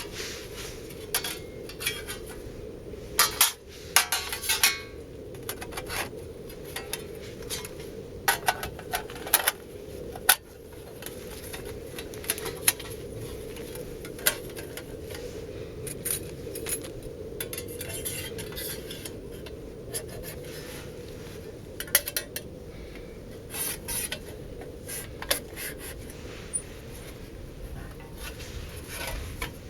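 Thin stainless steel stove panels and metal fittings clinking and knocking against each other as they are handled. The sharp metallic clinks come in scattered clusters, loudest a few seconds in and again around ten seconds in, over steady low background noise.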